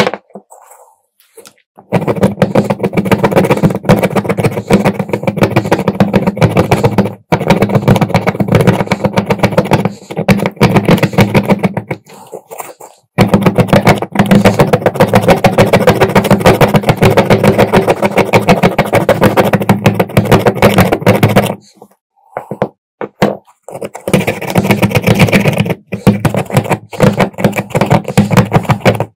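Small electric power tool running in several stretches of a few seconds each, with abrupt breaks between them.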